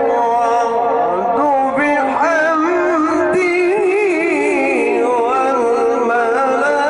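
A male reciter's voice in slow, melodic mujawwad Quran recitation, drawing out a long ornamented phrase without clear words. The pitch climbs about two seconds in and then wavers on a high held note.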